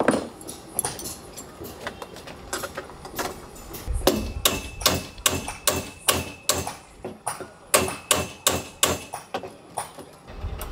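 Hammer blows on a wooden boat's bulwark. A hard single hit comes first, then scattered lighter taps, then from about four seconds in a run of sharp strikes, two or three a second, with a faint high ring between them.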